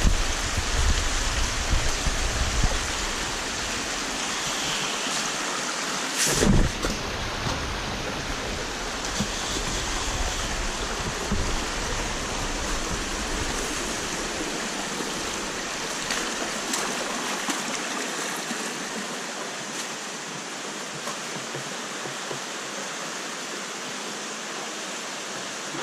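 The Bigar stream running over rocks in a steady rush, with a single thump about six seconds in.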